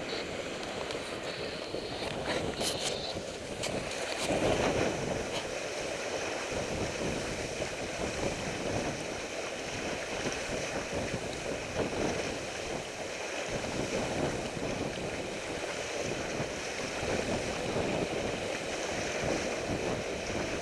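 Water rushing and splashing along the hull of a sailboat heeled under sail, with wind on the microphone.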